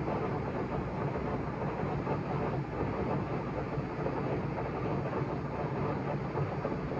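LeBlond 26-inch heavy-duty lathe running steadily off a rotary phase converter, its spindle turning in reverse, with the noise of its straight-cut gears. The camera tripod touching the lathe's chip pan adds rattle to the sound.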